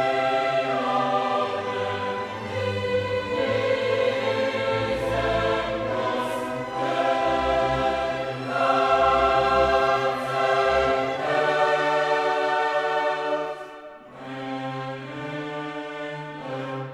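Background music: slow choral and orchestral piece with sustained chords, quieter from about fourteen seconds in.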